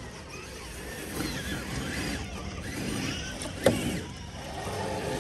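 Electric motor and drivetrain of an RC rock crawler whining, rising and falling in pitch with the throttle, with one sharp knock a little past halfway.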